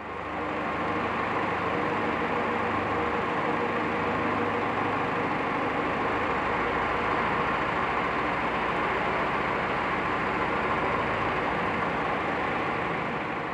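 A vehicle engine running steadily at an even speed, with no change in pitch or level, in a large echoing hangar.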